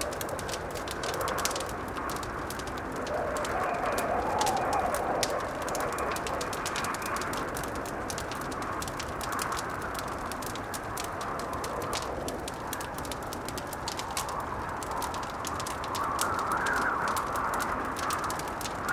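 Wood fire crackling with a steady run of sharp pops and snaps, under a howling blizzard wind that swells and falls, with gusts rising about four seconds in and again near the end.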